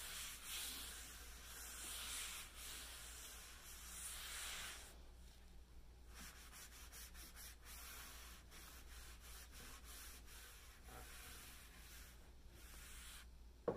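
A paper towel soaked in oil-based wood stain rubbing in strokes over a buffet top. It makes a soft, faint swishing that is stronger in the first few seconds, then fainter.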